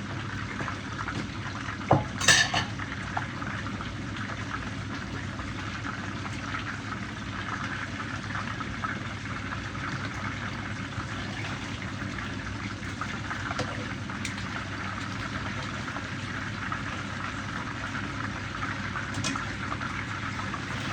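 Food sizzling and crackling steadily in a pan on the stove. About two seconds in, a metal utensil clanks and rattles against the pan; a few lighter taps follow later.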